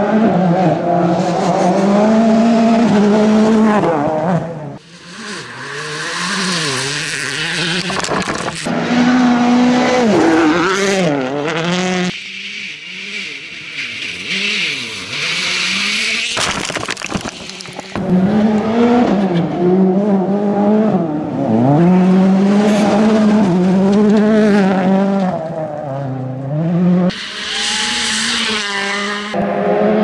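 Rally cars on a gravel stage, their turbocharged engines revving hard, with the pitch rising and dropping through gear changes and lifts as each car passes at speed. The sound cuts abruptly from one car to the next every few seconds.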